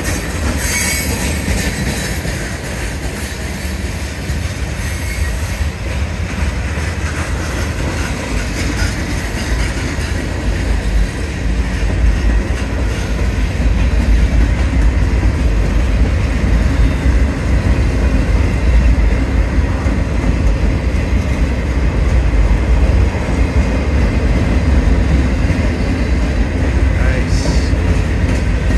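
Freight cars of a CSX mixed manifest train rolling past close by: a steady heavy rumble of steel wheels on the rails, with a faint high wheel squeal. It grows louder about halfway through.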